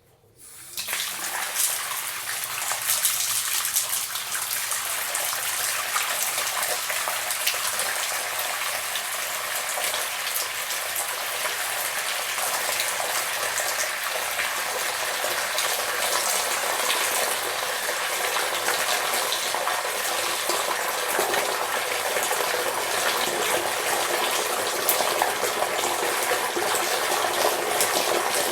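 Water running from a tap in a steady, full stream. It starts about half a second in and is at full flow within a second.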